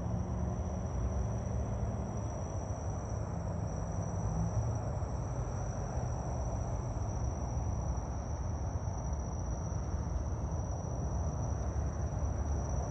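Insects droning steadily on one high pitch over a low, steady rumble of outdoor noise.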